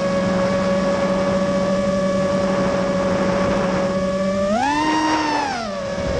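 FPV quadcopter's brushless motors whining at a steady cruise, heard through the drone's onboard camera. About four and a half seconds in, a throttle punch raises the pitch for about a second before it drops back.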